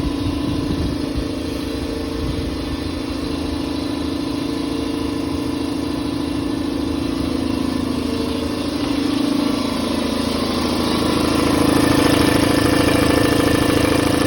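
Campbell Hausfeld air compressor's motor and pump running steadily with a steady hum, filling the tank toward its 135 psi cut-off. It gets a little louder about three quarters of the way through.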